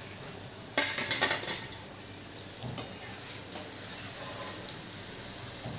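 A perforated metal skimmer (jhara) scraping and clattering against a metal kadhai as fried cauliflower pakoras are lifted from the oil. The loudest part is a burst of metal clatter a little under a second in, followed by a few lighter clinks, with hot frying oil sizzling faintly underneath.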